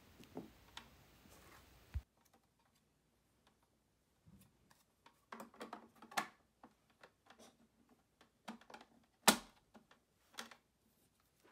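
Scattered light plastic clicks and knocks from handling the Petietec Handily-2 pet dryer's housing: the power cord pulled from its side compartment and the fan filter grille cover fitted back on, with one sharper click about nine seconds in.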